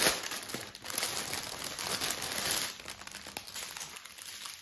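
Clear plastic protective film on a diamond painting canvas crinkling as it is lifted and handled, busiest in the first couple of seconds and then quieter.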